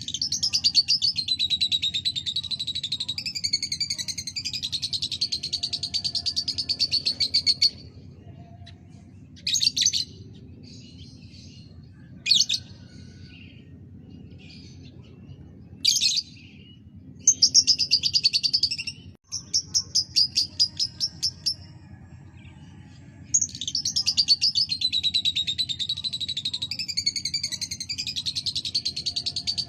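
Lovebird chattering in long, fast, rattling trills: one of about eight seconds, then short bursts of chirps, then another long trill near the end. A low steady hum runs underneath.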